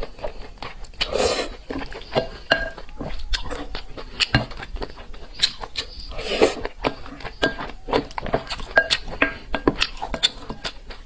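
Close-miked eating of noodles: wet chewing and biting with many sharp little mouth clicks, and two longer noisy slurps, one about a second in and one about six seconds in.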